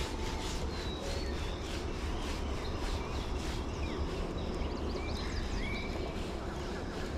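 Outdoor ambience: birds calling in short chirps and quick pitch glides, over a steady low rumble with faint scattered ticks.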